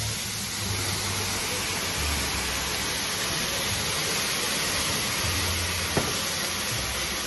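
Food sizzling on a teppanyaki griddle, a steady hiss, with one sharp click about six seconds in.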